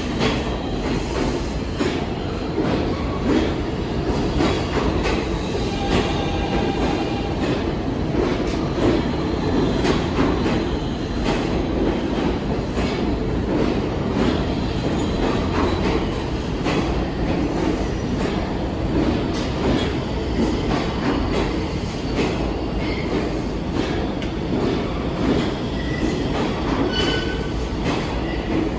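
New York City subway train running between stations: steady wheel-on-rail noise with frequent rail clicks and faint, brief wheel squeals.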